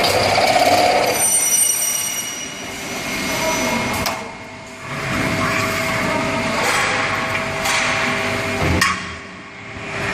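Aluminium-profile multi-head drilling machine running: a steady motor whine with a noisy cutting hiss. It eases off twice, about four seconds in and again near the end, each time just after a sharp click.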